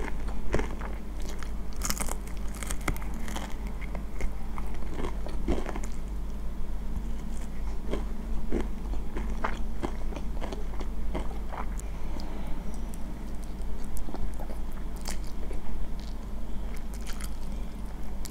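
Close-miked eating of crunchy fried chicken drumstick and noodles: irregular crisp crunches and chewing mouth sounds, over a steady low hum.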